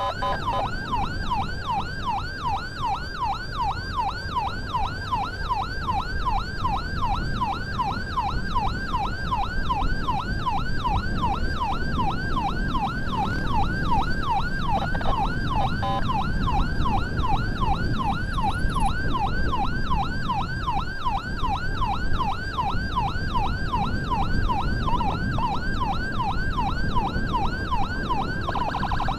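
Ambulance siren on a rapid yelp, rising sweeps repeating about three times a second, over the low rumble of the vehicle on the road.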